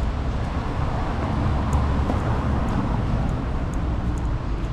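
Rainy city street ambience: a steady wash of traffic noise from tyres on wet roads, swelling a little around the middle, with a few faint light ticks.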